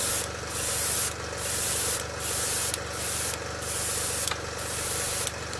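Sparmax Max-3 dual-action airbrush spraying paint in repeated short passes: a hiss that starts and stops about seven times. Under it runs the steady hum of the Sparmax ARISM AC66HX oil-less compressor.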